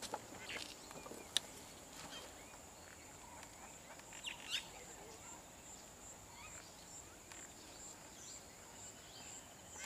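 Quiet outdoor ambience: a steady, high, evenly pulsing insect drone with a few short bird chirps about four and a half seconds in, and a single sharp click about a second and a half in.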